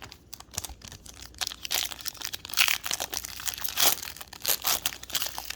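Foil wrapper of a trading card pack crinkling and tearing as it is handled and ripped open, in irregular crackly bursts that grow louder after the first second or so.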